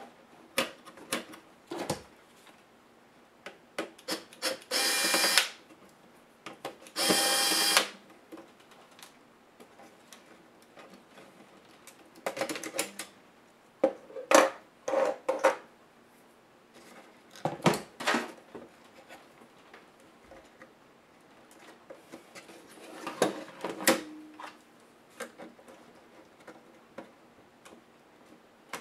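Clicks, taps and scraping of plastic and metal parts of an Acer Extensa 4620 laptop as its chassis and circuit boards are handled and pried apart by hand. Two louder scraping sounds, each about a second long, come a few seconds in.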